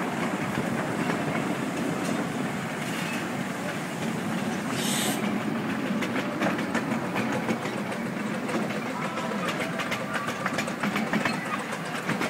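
7¼-inch gauge miniature steam train running slowly along the track, its wheels clicking over rail joints and points, the clicks coming thicker from about halfway on. A brief hiss of steam about five seconds in.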